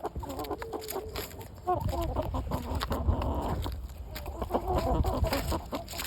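Chickens clucking, short calls coming in several clusters, over a low rumble.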